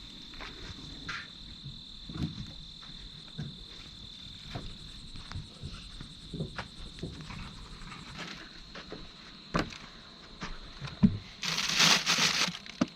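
An insect, cricket-like, trilling steadily at one high pitch, with scattered faint clicks and knocks. Near the end a louder burst of rustling noise covers it.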